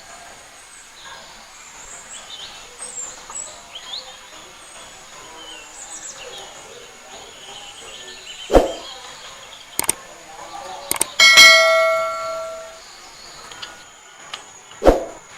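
Metal cookware is struck once and clangs, ringing out for about a second and a half. Before it come a knock and a few clicks, and after it another knock. Birds chirp and an insect drones high and steady in the background.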